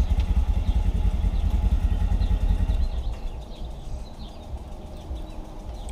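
A vehicle engine idling: a low, pulsing rumble that drops off and fades about three seconds in.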